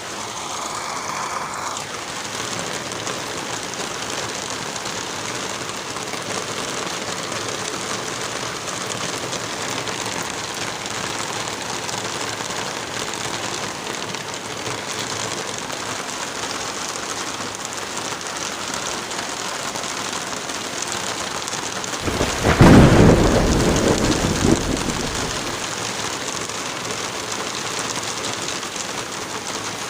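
Steady rain falling, with one low rumble of thunder about two-thirds of the way through that swells suddenly and fades away over about three seconds.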